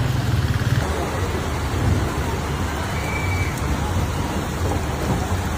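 Heavy rain falling steadily, with a low rumble underneath that is strongest in the first second.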